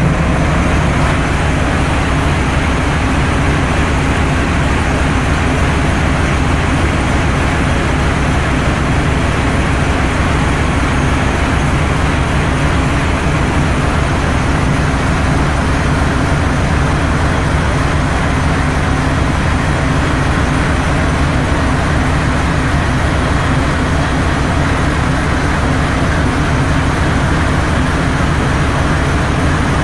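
Ship's diesel engine-room machinery running, a loud, steady drone with a low hum that does not change.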